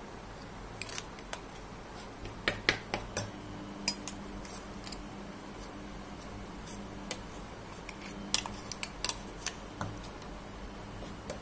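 Steel spoon scraping and knocking inside a stainless steel mixer-grinder jar, clearing out ground spice powder: irregular light metal clinks and taps, in bunches.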